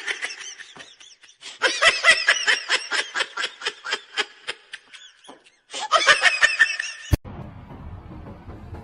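High-pitched laughter in rapid repeated bursts, coming in three runs. About seven seconds in, a sharp click cuts it off and only a low steady hum remains.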